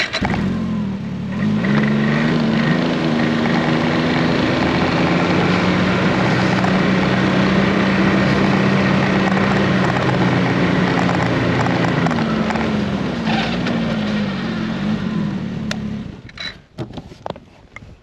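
Ski-Doo Expedition snowmobile engine pulling away and picking up speed over the first two seconds, then running steadily across the lake ice before throttling back about sixteen seconds in.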